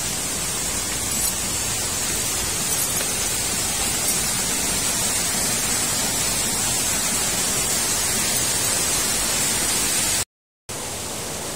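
Steady rushing hiss of a nearby waterfall, even across all pitches and strongest in the highs. It drops out for a moment about ten seconds in, then carries on a little quieter.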